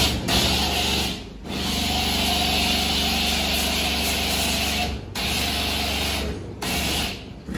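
Self-service car-wash foam lance spraying foam onto a car, a steady hiss over the hum of the wash's pump motor. The spray stops briefly three times.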